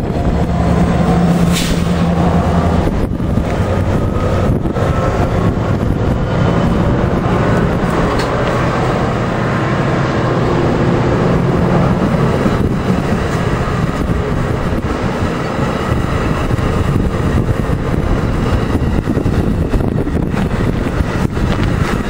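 New Jersey Transit multilevel commuter coaches rolling past close by: a steady rush and rumble of wheels on rail, with a few sharp clicks.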